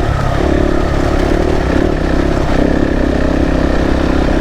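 KTM 690's single-cylinder engine running at a steady pitch while the motorcycle is ridden.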